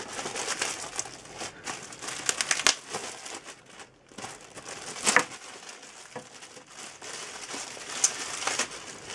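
Clear plastic wrap around a new laptop crinkling as hands handle it, with louder bursts of crinkling about two and a half and five seconds in.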